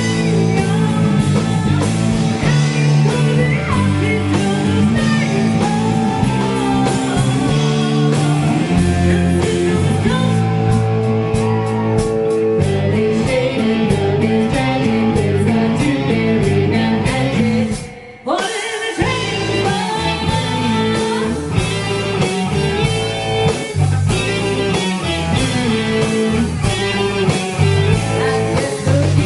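Rock band playing a blues-rock song with guitar and singing. The music cuts out for about half a second about eighteen seconds in, then comes straight back.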